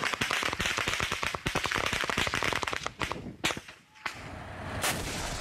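Heavy small-arms fire: a fast, dense run of gunshot cracks for about three seconds. It then thins to a few single shots, with one loud crack near the end.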